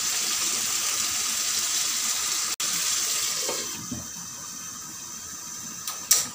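Fish curry sizzling and bubbling in a nonstick pan on a gas stove, a steady hiss. Just before halfway a glass lid goes on with a light knock and the sizzle turns softer and muffled; near the end the stove knob gives one sharp click.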